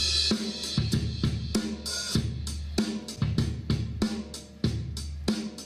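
Percussion-heavy music with kick drum, snare and cymbals at a steady quick beat, played through a large loudspeaker cabinet.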